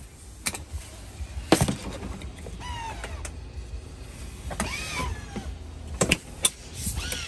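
Handling noises in a Tesla Model Y's back seat: clicks and knocks, with several short whining squeaks that rise and fall in pitch.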